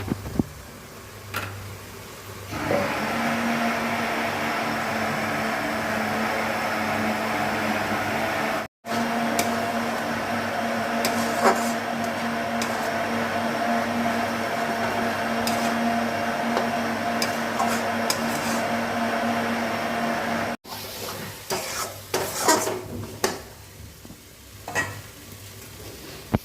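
Chicken frying in a pan, a steady sizzle with a hum under it, broken by two abrupt cuts. Clinks and knocks of a utensil against the pan come now and then, most of all near the end.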